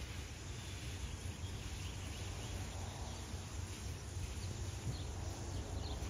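Outdoor street ambience: a steady low rumble and hiss with a few faint bird chirps.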